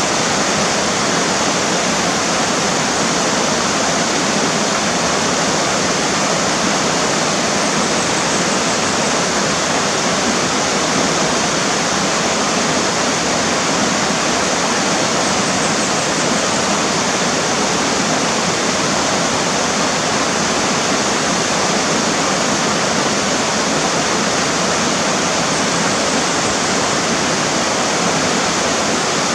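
River water rushing steadily over rocks, a constant full rush without change.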